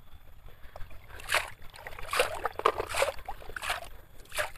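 Hands digging and scooping through sand in a toy dump truck's bed: a series of irregular gritty scrapes and rustles.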